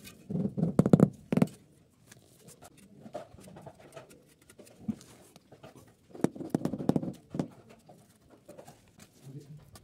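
Animal calls in two short pulsed bouts, one at the start and one about six seconds in, each lasting about a second.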